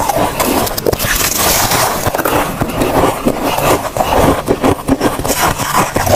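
Freezer frost crunching as it is bitten and chewed: a dense, continuous run of crisp crackles.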